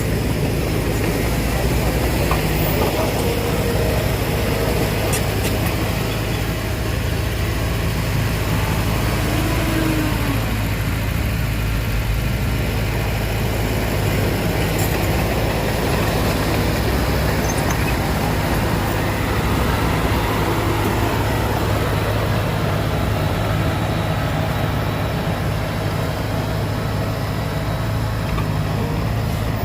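Heavy diesel engine running steadily, a constant low drone with no revving.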